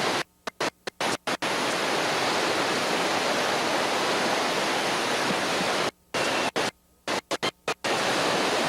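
Whitewater rapids rushing in a steady roar. The sound cuts out abruptly to silence several times in the first second and a half and again between about six and eight seconds, as in recording dropouts.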